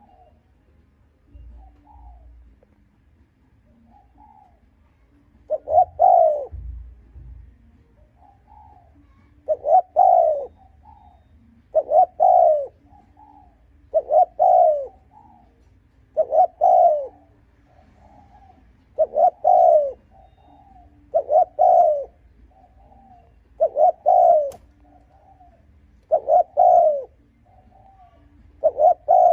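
Spotted dove cooing: a few soft calls, then about ten loud coo phrases repeated every two and a half seconds or so, starting about six seconds in, with quieter notes between them. This is the cooing of a decoy dove.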